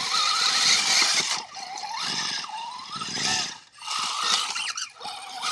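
Axial SCX6 RC crawler's electric drivetrain whining, the pitch rising and falling several times as the throttle is worked. The driver is unsure whether the noise comes from the transmission or the differential.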